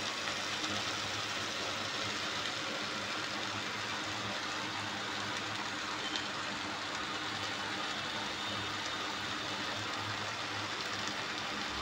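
Steady sizzling hiss of a spinach, potato and shrimp dish cooking in the pan, with a low, even hum underneath.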